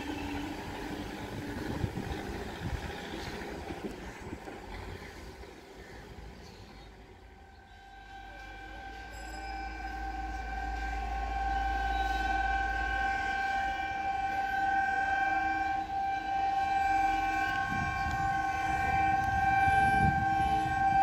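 An EMU local train's horn held in one long steady blast from about eight seconds in, growing louder as the train approaches at speed, with the rumble of the train building near the end. Before the horn, a rumble fades away.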